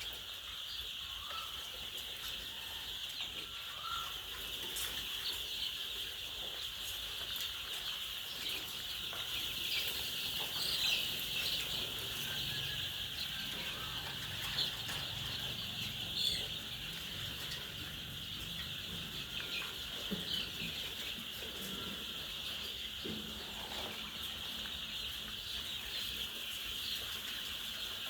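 A large flock of laying hens clucking and calling together in a continuous dense chatter, with a few louder single calls standing out now and then.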